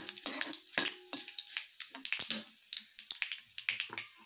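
Whole spices (mustard seeds, cumin, coriander seeds, cloves and bay leaves) crackling with irregular sharp pops in hot ghee in a kadhai. A steel ladle scrapes and clinks against the pan as they are stirred.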